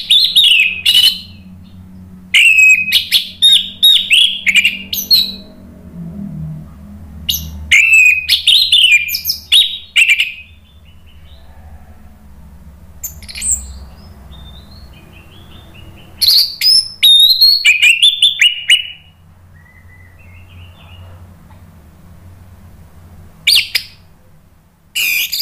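Orange-headed thrush singing: bursts of fast, varied whistled notes that sweep sharply up and down, each burst lasting one to three seconds, separated by pauses of a few seconds.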